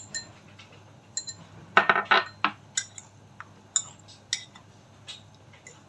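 A metal fork clinking and scraping against a white ceramic bowl while turning chicken wings in their marinade. There is a ringing clink at the start, a quick cluster of louder clinks about two seconds in, then scattered single taps.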